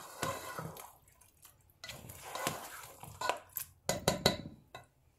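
A spatula stirring chunks of beef in a wet yogurt-and-spice masala in a pot: wet squelching and scraping in three short spells, with a few sharp clicks near the end.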